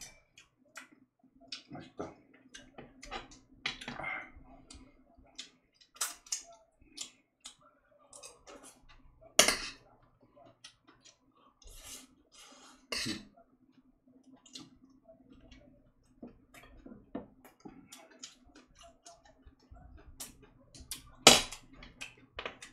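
Close-up eating sounds: chewing, with many small clicks and a few sharper knocks of utensils against dishes.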